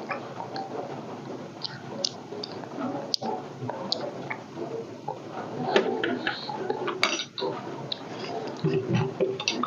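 Litchis being peeled and eaten at a table: scattered small clicks and clinks of dishes and handling noises.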